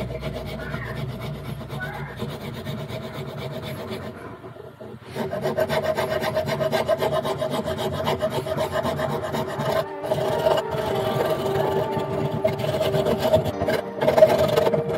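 Hand file rasping back and forth on a cast epoxy-resin mouse-pad blank, shaping its edge. From about five seconds in the strokes get louder and faster as the file works inside a slot cut through the piece.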